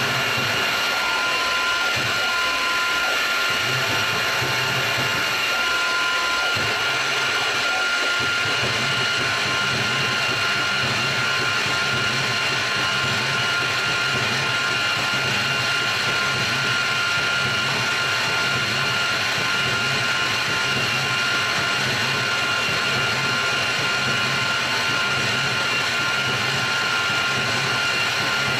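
Benchtop CNC mill running, its spindle whining steadily while an end mill cuts pockets for drive-dog pins into a pulley. A low hum comes and goes over the first several seconds, then holds steady.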